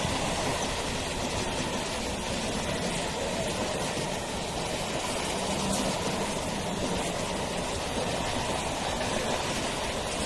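Electric multiple-unit suburban local train running past, a steady rumble of wheels on rail.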